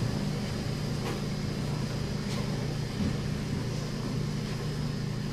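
A steady low hum fills a large gymnasium, with a faint high whine. A few soft knocks and shuffles come from a crowd standing quietly.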